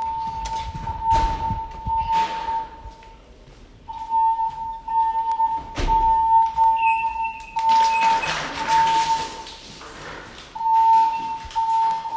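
Building fire alarm voice-evacuation speakers sounding the alert tone between recorded evacuation announcements: a single steady tone near 1 kHz, repeated in short pulses with brief pauses, set off by a manual pull station during an alarm test.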